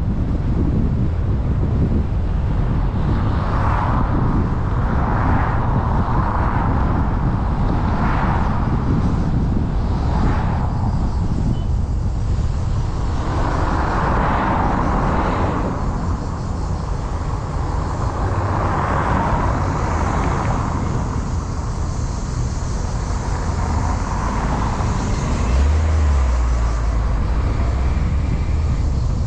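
Car driving through town traffic: a steady low rumble of road and wind noise, with swells of hiss coming and going every few seconds. A brief low thump comes near the end.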